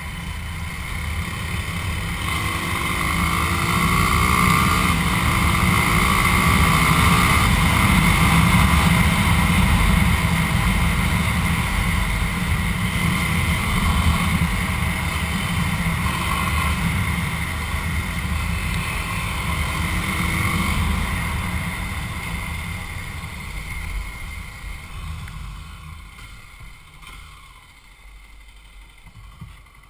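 Motorcycle engine running under way, with wind buffeting on the microphone. The engine note climbs twice in the first several seconds as the bike accelerates through the gears. The sound fades over the last few seconds as the bike slows.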